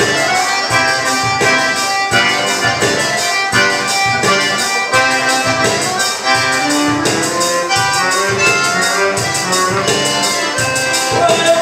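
Live instrumental dance music led by an accordion, with a steady beat.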